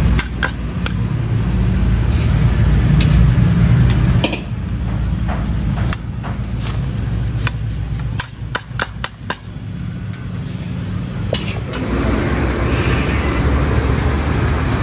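A metal ladle scrapes and taps as fried rice is scooped into paper-lined foam takeaway boxes, with a quick run of clicks about halfway through. Under it runs a steady low rumble of road traffic, and near the end a steady hiss sets in.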